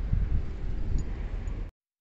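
Wind buffeting a phone microphone outdoors: a low rumble with no voice, which cuts off to dead silence just before the end.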